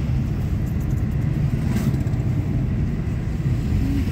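Car driving along at a steady speed, heard from inside the cabin: a continuous low rumble of engine and road noise.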